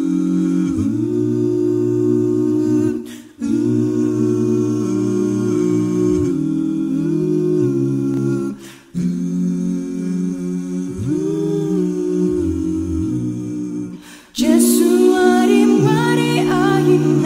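A hymn tune hummed a cappella in long held phrases, with short breaths about three, nine and fourteen seconds in; after the last break the voicing turns brighter and louder.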